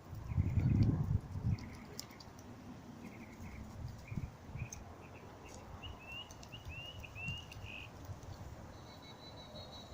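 A bird chirping in a long series of short notes, some of them quick upward sweeps, after a brief loud low rumble in the first second or so.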